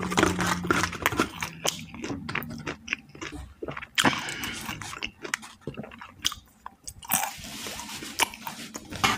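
Chewing and biting crispy fried chicken, with many short, irregular crunches.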